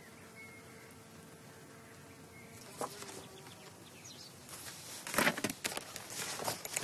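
A faint steady buzz like a flying insect at first, then from about four and a half seconds in, loud crackly rustling of a paper sheet being handled and unfolded.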